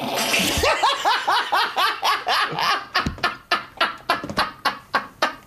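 Hearty men's laughter: a high-pitched cackle of rapid, repeated bursts that eases off near the end.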